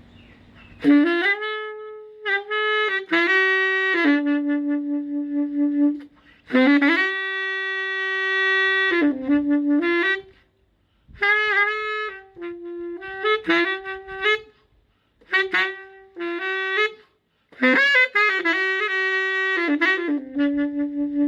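Unaccompanied wind instrument playing a slow, single-line melody in phrases of held notes, with brief pauses between the phrases.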